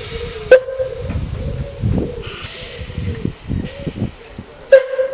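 Steam locomotive hissing steam, with a low steady tone and repeated low puffs underneath. Two sharp loud bangs, about half a second in and near the end, are the loudest sounds.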